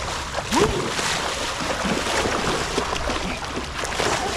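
Shallow pond water splashing and churning as a person runs through it and then dives in and kicks. A brief rising-and-falling vocal cry about half a second in.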